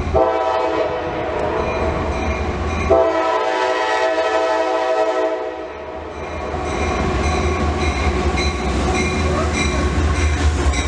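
CSX freight train's diesel locomotive horn sounding two long blasts back to back. After the blasts, the locomotive runs with a low, steady rumble as it approaches.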